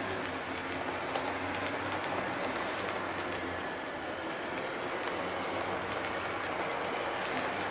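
HO scale model passenger coaches behind a Roco DB class 110 rolling past on the track: a steady, dense rattle of fine rapid clicks from the small metal wheels on the rails, with a low hum that fades about four seconds in.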